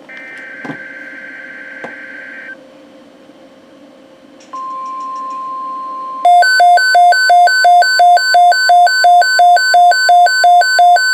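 NOAA Weather Radio alert sequence on a Midland WR120B receiver: a burst of warbling digital SAME header data, then a steady 1050 Hz warning alarm tone starts about four and a half seconds in. About two seconds later the radio's own alarm joins in: a loud, evenly repeating electronic beeping at about three beeps a second over the steady tone, signalling an incoming alert.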